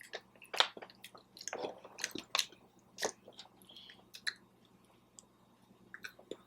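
Close-miked chewing and biting of food: irregular wet clicks and smacks of the mouth, busier in the first three seconds and sparser after.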